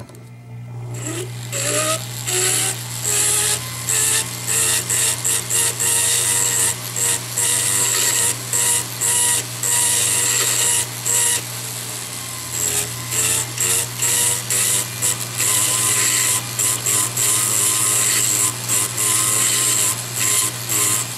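Jeweller's rotary handpiece spinning a bur against the inside of a metal bezel cup, reaming out the seat for a cabochon: a steady motor hum with a grinding, hissing cut over it. The cutting sound starts about a second in and drops out for brief moments again and again.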